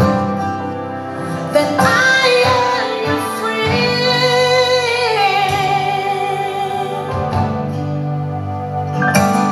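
Gospel song with a woman singing long held notes that slide up and down over a sustained instrumental backing.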